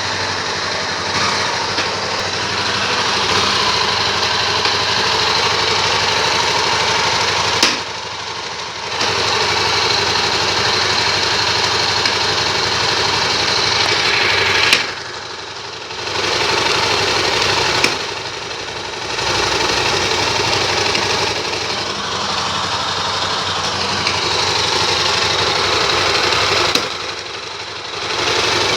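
Honda XR 250 Tornado's single-cylinder four-stroke engine idling in neutral with a loud mechanical noise from the engine, which the owner first took for a gearbox fault. The sound drops briefly four times, each drop starting with a click.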